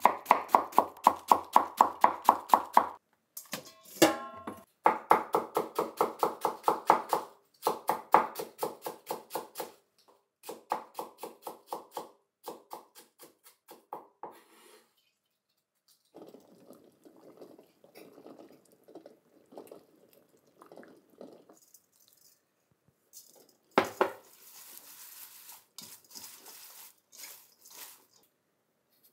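A kitchen knife shredding cabbage on a wooden cutting board, fast even strokes about six a second, in runs that slow and thin out over the first half. Near the end, a knock and then rustling as shredded cabbage is tossed by hand in a stainless steel bowl.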